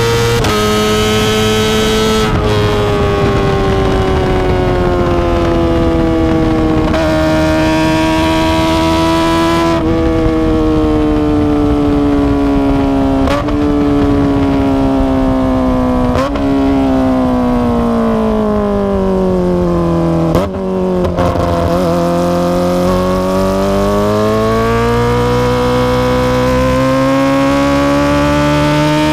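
Kawasaki ZX-25R's high-revving inline-four with an Akrapovic exhaust, running at high revs under way. The pitch slowly falls for about twenty seconds with several brief breaks, dips briefly, then climbs steadily near the end as the engine revs up again.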